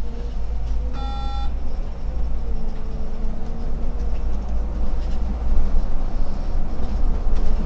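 Solaris Urbino 18 articulated city bus driving, heard from the driver's cab: a steady low engine and road rumble with a faint whine. About a second in, a single short electronic beep sounds for about half a second.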